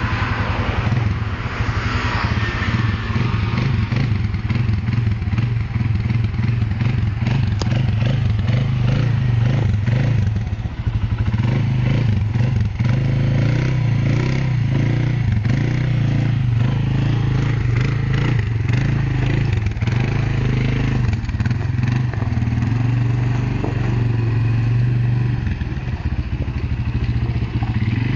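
Kymco MXU 300 ATV's single-cylinder engine running at low speed with a steady low drone as the quad creeps and turns. Scattered short knocks can be heard in the middle.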